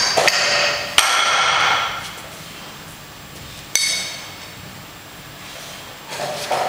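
Iron weight plates clanking against each other and the loading pin as they are handled. There are sharp metal strikes that ring on briefly: one at the start, one about a second in, one near four seconds, then a quicker clatter near the end.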